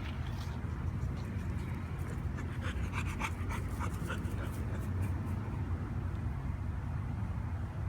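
A dog panting, with a run of short, sharp breaths or sounds in the middle, over a steady low hum.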